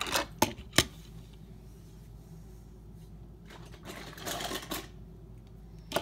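Toy cars clicking and clattering as they are knocked and handled: three sharp clicks in the first second, then a longer rattling clatter about four seconds in.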